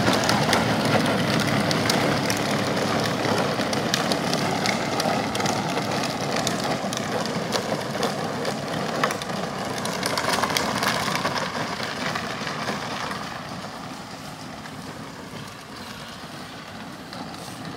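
Kids' battery-powered ride-on ATV driving along a paved path: a steady electric motor and gearbox whine with the rattle of hard plastic wheels on the pavement. It fades in the last few seconds as it pulls away.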